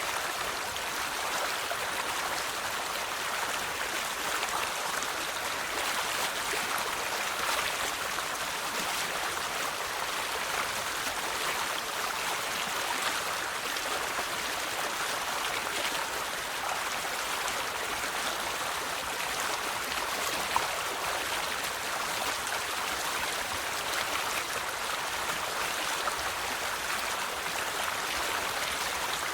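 River water flowing and splashing over stones in a steady, even rush.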